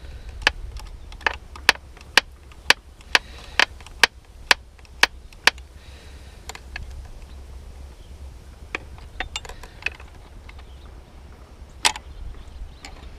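Sharp metallic clicks from a hand tool tightening the carburetor drain screws on a two-stroke outboard. They come in a regular run of about two a second for the first five seconds or so, then a few scattered clicks, with a louder one near the end.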